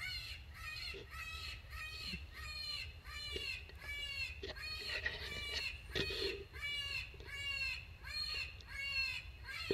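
Electronic predator caller playing a prey-distress sound as a quick run of short, raspy, arching cries, about three a second.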